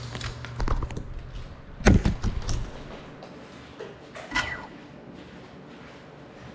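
A small FPV cinewhoop drone carrying a GoPro knocking against hard surfaces after a crash. There are a few light knocks, then a loud thud with clattering about two seconds in, and one more knock a couple of seconds later.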